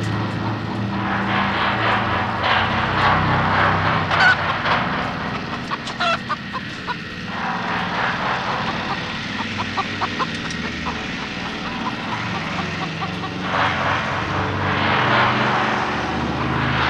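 Horror-film soundtrack: a steady low droning score with eerie washes, and a chicken squawking twice, about four and six seconds in.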